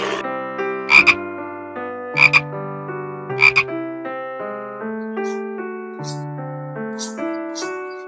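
Frog croaking in short, sharp double-pulsed calls, three loud ones a little over a second apart in the first half, then fainter ones near the end, over gentle piano music.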